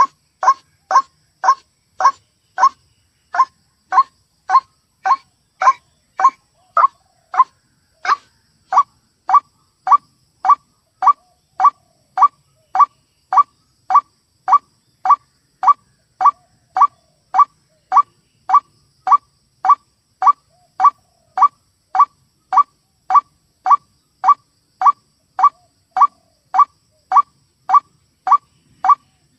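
White-breasted waterhen (ruak-ruak) call repeated over and over, about two short, sharp notes a second at an even pace and loudness. This is the bird's lure call, played to draw waterhens to a trap.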